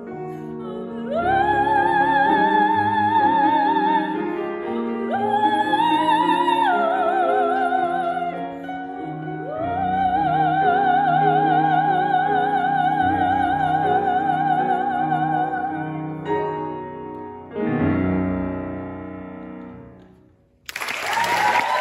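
A woman singing a classical art song in operatic style, holding three long notes with wide vibrato, accompanied by a Steinway grand piano. The piano closes on a final chord that dies away, and applause breaks out just before the end.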